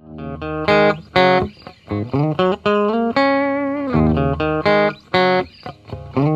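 Intro music led by a guitar playing a melody of separate plucked notes, some of them bending in pitch.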